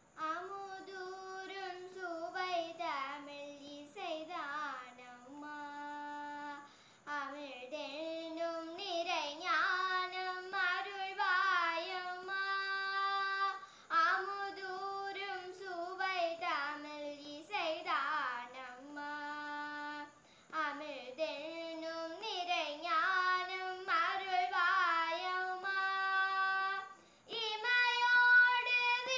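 A young girl singing a Tamil song solo in Carnatic style, with no accompaniment. Her voice slides and bends between notes and holds others steady, in phrases broken by short pauses.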